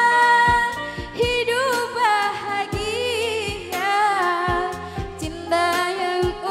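A young woman sings into a microphone over musical accompaniment, her melody full of turns and wavering ornaments, with drum beats landing regularly underneath.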